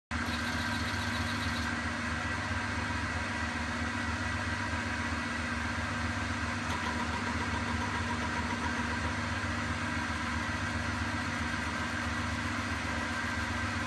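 Eureka E65 espresso grinder's motor running steadily with Mazzer Super Jolly burrs fitted, spinning with very few beans in it. It is a constant hum with a few held tones.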